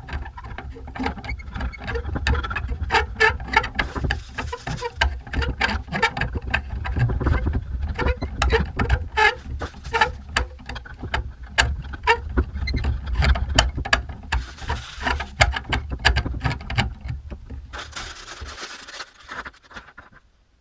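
Hands assembling a helping-hands desk clamp: many quick clicks, clinks and knocks as the metal alligator clips and adjustable arms are handled and slotted into the base, over a low handling rumble, with two stretches of rustling in the second half.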